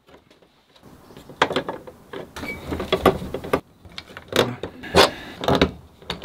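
Hand pop-rivet gun being squeezed to set a rivet through a licence plate into its plastic holder, each squeeze a short, sharp clack, several in a row about every half second to a second.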